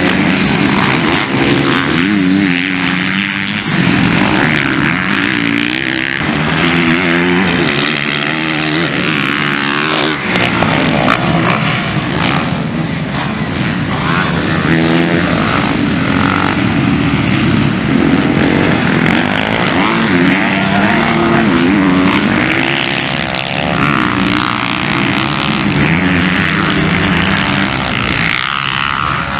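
Several MX1-class motocross bikes racing past, their engines revving up and down through the gears so the pitch rises and falls over and over.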